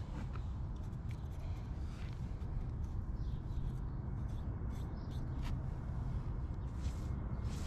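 Bristle brush dipping into a can of primer and brushing it along a brick-to-concrete joint: faint scrapes that come more often near the end, over a steady low rumble.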